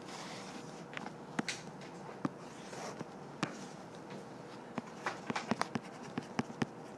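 Quiet classroom room noise with scattered small clicks and taps, several coming in quick succession near the end.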